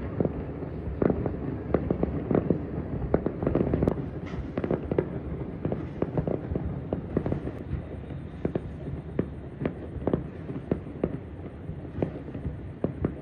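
Many fireworks bursting at once across a city: a steady rumble of overlapping booms with sharp pops several times a second.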